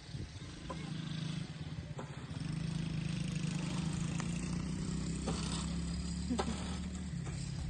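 Small ATV engine running steadily, getting louder about two and a half seconds in, with a few light clicks over it.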